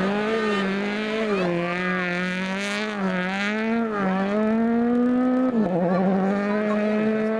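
Rally car engine, a Peugeot 208, driven hard: the revs climb and dip several times with throttle lifts and gear changes, with a sharp drop in revs about five and a half seconds in.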